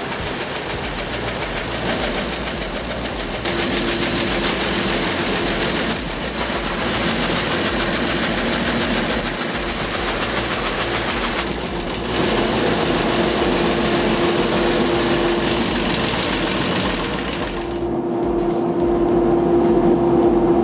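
Machinery engines running steadily under load, one sound giving way abruptly to another several times, with a steady hum coming and going.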